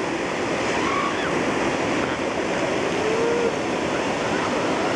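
Steady noise of ocean surf on the beach, with a few faint, short, wavering calls in it, about a second in and again past the middle.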